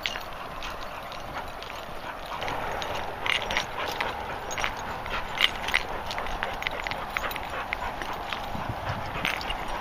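Footsteps and paws scuffing and rustling through long grass, a series of irregular short swishes and ticks over a steady outdoor hiss.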